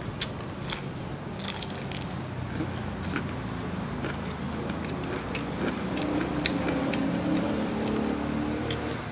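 Close-up crunching and chewing of crispy breaded fried chicken, with scattered crackly bites, over a steady low hum.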